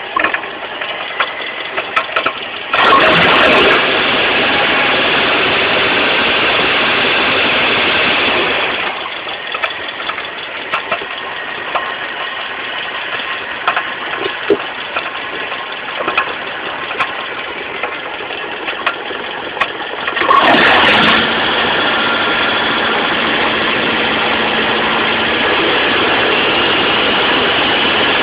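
Mitsubishi 4G15 inline-four carburettor engine running with irregular knocking clicks from a loose crankshaft pulley. It idles, then is revved and held higher twice, about three seconds in and again about twenty seconds in.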